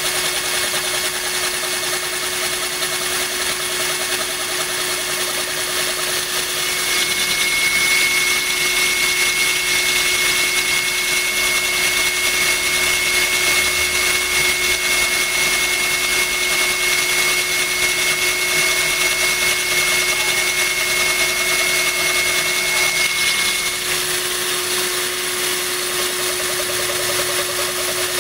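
Power drill running steadily as its bit grinds into a glass bottle under a stream of water from a hose spray nozzle. The sound grows a little louder, with a thin high whine, from about seven seconds in until about twenty-four seconds in.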